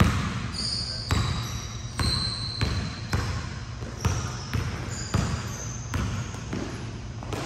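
Basketball bouncing on a hard court, about ten bounces at an uneven pace, with short high sneaker squeaks between them.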